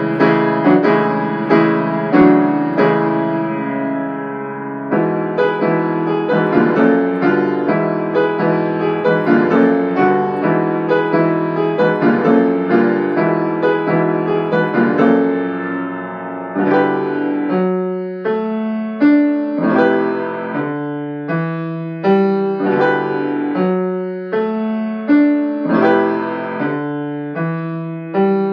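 Piano music: a keyboard piece with many overlapping struck notes and chords. About two-thirds of the way through, the playing thins to short, separate chords with gaps between them.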